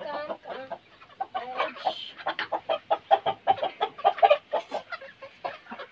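Chickens clucking in a fast, agitated run of short, sharp calls, several a second, while a rooster is being caught out of its coop. The calls start about a second and a half in, after a quieter start, and ease off near the end.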